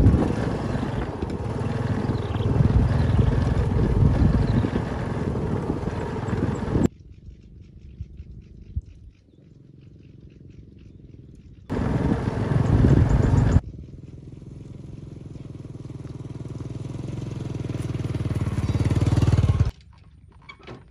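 Small step-through motorcycle riding along a dirt track, its engine running with loud wind and road noise. After a quiet gap and a short loud stretch, the bike approaches and grows steadily louder for about six seconds, and the sound then cuts off abruptly near the end.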